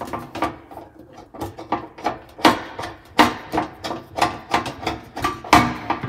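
Irregular clicks, clinks and knocks of metal gas fittings being handled and screwed together: an elbow fitting and a braided metal gas hose being connected at a cooktop's gas inlet.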